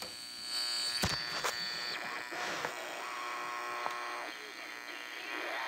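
Heathkit GR-81 regenerative receiver with its regeneration turned up into oscillation, whistling through its speaker as the station's carrier beats against the set's own signal, over buzz and static. A high steady whistle stops about two seconds in, a click comes about a second in, and a lower, fainter whistle follows near the middle.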